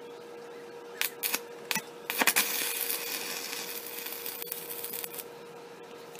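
Stick (shielded metal arc) welding on steel: a few sharp ticks about a second in as the rod is struck, then from about two seconds the arc crackles and sizzles for about three seconds, thinning out near the end. A faint steady hum runs underneath.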